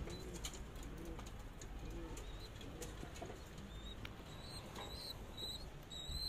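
Pigeons in a loft, faint: a few soft low coos in the first half, then short high chirps repeating about twice a second through the second half.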